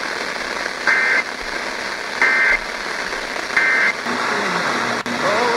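Three short, identical warbling data bursts a little over a second apart, the EAS/SAME end-of-message code, over steady radio static.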